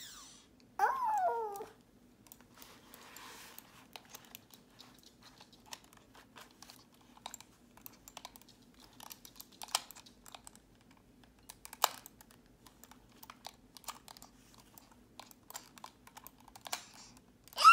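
A dog gives a short whine that falls in pitch about a second in, and whines again at the very end. In between, a computer mouse is handled, with scattered small clicks of its buttons and plastic.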